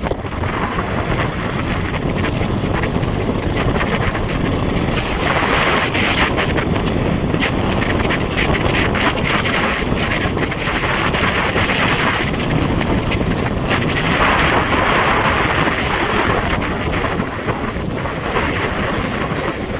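Wind rushing over the microphone of a moving motorcycle, a steady loud roar of air that swells and eases several times.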